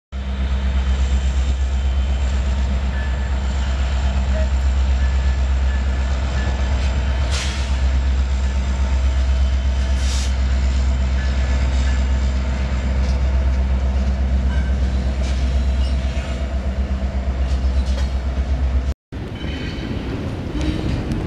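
A Union Pacific diesel locomotive runs with a loud, steady low drone, with two brief hisses in the middle. Near the end the drone cuts off suddenly and a quieter, rougher noise takes over.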